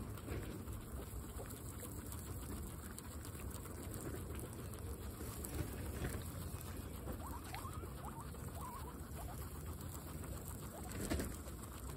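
Several guinea pigs chewing and nibbling fresh grass: a dense, continuous patter of small crunching bites and rustling blades.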